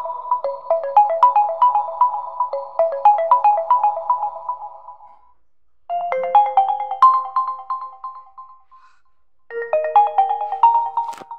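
Built-in ringtones of a realme C11 phone played one after another: a looping melody of quick, bright notes fades out about five seconds in, a second short tune plays from about six seconds, and a third starts just before ten seconds and is cut off with a click near the end.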